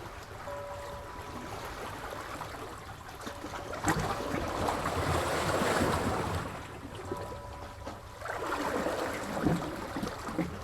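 Sea waves washing on a shore: one wave breaks about four seconds in, swells and draws back, and a second, smaller wave comes in near the end.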